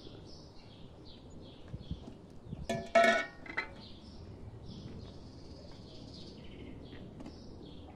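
Small birds chirping steadily. About three seconds in, a loud, short pitched animal call cuts in and is gone within a second.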